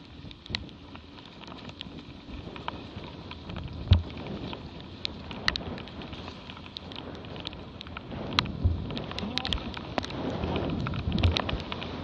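Water rushing and splashing along a Dart 16 catamaran's hulls at speed, with spray landing in many sharp ticks and a few heavy thumps as the boat hits the chop. It grows louder over the second half as the spray builds.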